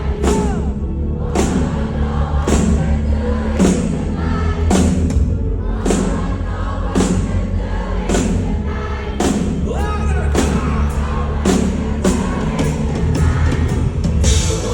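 Live band music played loudly through a concert sound system, with singing over a heavy bass line and a sharp drum hit about once a second.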